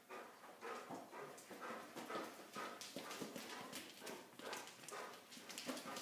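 A dog's claws clicking on a concrete floor, mixed with a person's footsteps, as dog and handler walk together at heel: a stream of short, irregular clicks, several a second.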